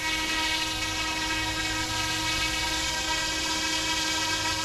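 YXZNRC F09-S scale RC helicopter flying, its brushless direct-drive main rotor motor and rotor blades making a steady whine of several tones that holds its pitch throughout.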